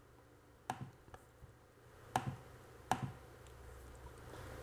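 Four short, sharp computer mouse clicks, unevenly spaced, placing the start and end points of lines being drawn. A faint steady low hum runs underneath.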